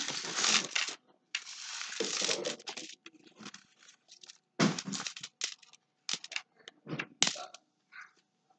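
Pennies and paper coin-roll wrappers being handled and moved about on a table: irregular crinkling and scraping, a longer stretch in the first three seconds, then a run of short bursts with gaps.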